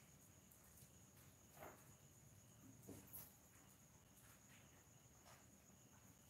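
Near silence: room tone with a faint steady high-pitched whine and a few faint, brief soft sounds.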